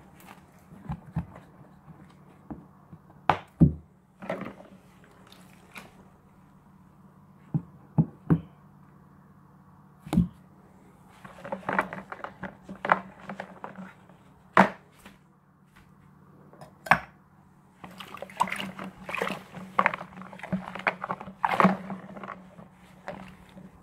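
A hand sloshing and scrubbing foamy liquid around the inside of a plastic fermenting bucket: irregular splashes and knocks against the plastic, coming in bursts that grow busier in the second half, over a steady low hum.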